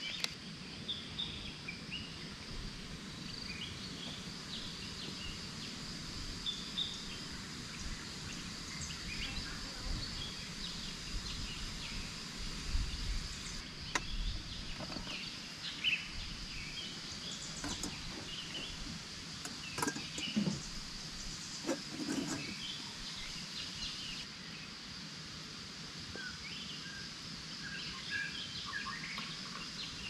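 Outdoor ambience: a steady high insect drone with scattered bird chirps, and a few brief light knocks about halfway through.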